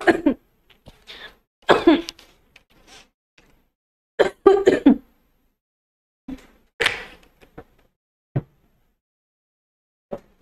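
A woman coughing and clearing her nose in several short fits a second or two apart, fading to weaker ones near the end.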